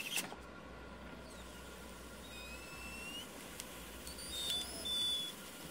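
Faint high squeaks and short rising whistles, twice, over a low steady hiss, from the gas reservoir and hose fittings of a homemade HHO electrolysis generator producing gas hard on 24 V.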